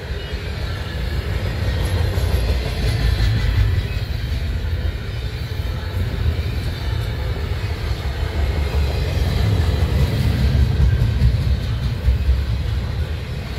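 Double-stack intermodal freight train rolling slowly past, its wheels and cars making a steady low rumble on the rails, with faint high brake tones above it; the train is braking.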